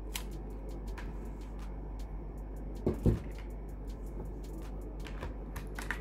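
Light handling noise as a Cat6 network cable and a plastic blister pack are picked up: scattered small clicks and rustles over a steady low hum, with a couple of dull bumps about three seconds in.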